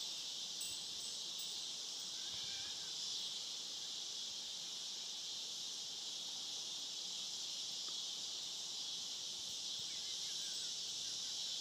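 Steady chorus of insects at dusk, an even, high-pitched buzz that holds at one level throughout.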